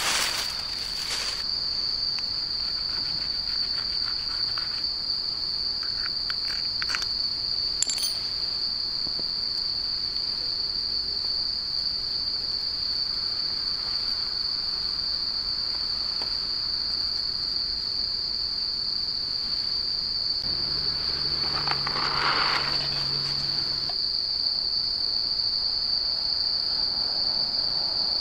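Night insects singing in one unbroken high-pitched drone, with a few brief clicks and rustles as fuel and paper are handled and lit in a steel fire pit.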